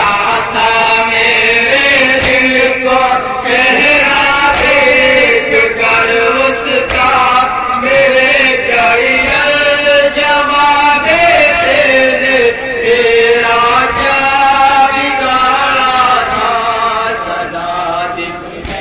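Male voices chanting a Shia noha (a Muharram lament) in a long, bending, unaccompanied melody, with faint thuds of matam chest-beating underneath.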